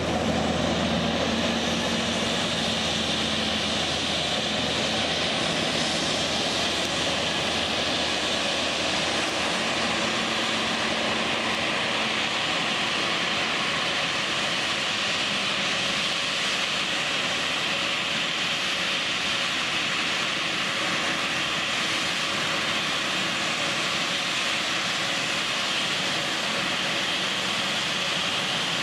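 Embraer E190 regional jet's twin turbofan engines (GE CF34-10E) running at taxi power as the jet rolls slowly toward the listener: a steady, loud jet whine and rush.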